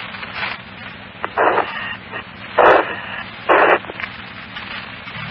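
Fire-department scanner radio channel held open with steady static hiss and a low hum. Three short, loud bursts of harsh noise break in about a second and a half, two and a half, and three and a half seconds in. The transmission cuts off suddenly at the end as the squelch closes.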